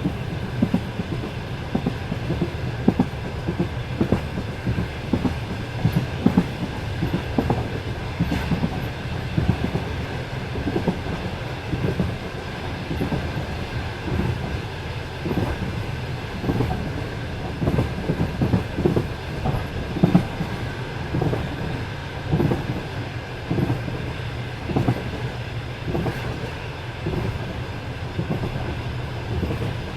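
Passenger train carriage running at speed, its wheels clacking over the rail joints: frequent short knocks over a steady low rumble, with a thin steady whine above.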